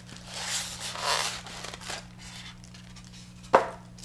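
Styrofoam packing block rubbing and scraping in two stretches as a mug is pulled out of it, then one sharp knock near the end.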